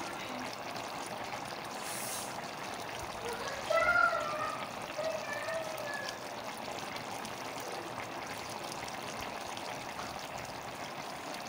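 Rice and water bubbling at a steady boil in an aluminium pot of potato pulao, the water cooking off before the pot is covered to steam. A brief pitched, voice-like sound cuts in about four seconds in, with a few fainter ones after it.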